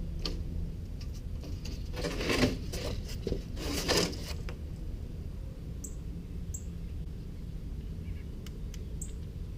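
Scratchy rustling of 2-inch foam insulation board being handled, louder twice in the first few seconds, then a few faint short ticks and squeaks, over a steady low hum.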